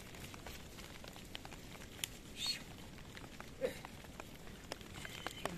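A flock of sheep and goats picking its way down a steep, brushy path: quiet scattered clicks and rustles of hooves on stones and through undergrowth, with one short faint call about three and a half seconds in.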